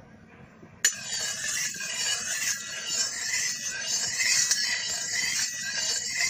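Metal spatula scraping around the inside of a thick metal kadhai, stirring mustard oil that is still heating and not yet sizzling. It begins with a sharp knock about a second in, then runs on as continuous scraping.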